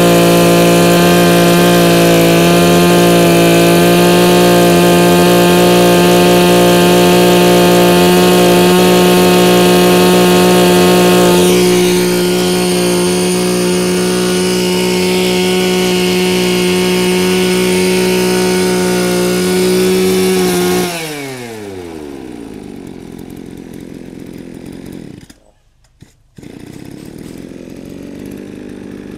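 Mitsubishi TL261 26cc two-stroke brush cutter engine running at a steady speed. Its pitch drops away about twenty seconds in, and the sound becomes much quieter after that.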